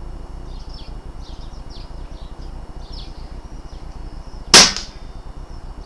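BSA R10 PCP air rifle firing a single .177 slug: one sharp shot about four and a half seconds in, dying away quickly.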